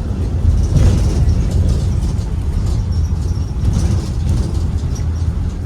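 Cabin noise inside a 2023 Blue Bird Vision school bus: a steady low rumble from its Ford 7.3-litre gasoline V8 and the road.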